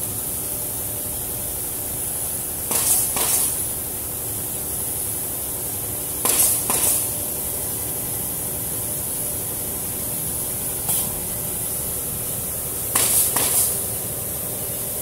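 Blue Elephant ELE2060 ATC CNC router running with a steady high-pitched spindle whine. Short, loud, doubled noisy bursts come every three to four seconds.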